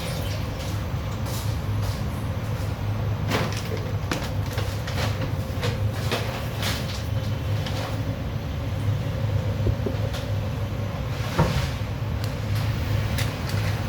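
A steady low mechanical hum with scattered clinks and knocks from kitchen work.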